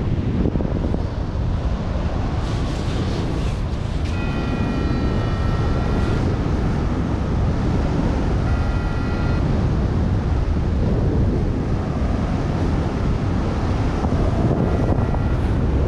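Rushing wind buffeting the microphone in paragliding flight. A variometer's electronic tone sounds three times over it: for about two seconds some four seconds in, for about a second near the middle, and briefly near the end.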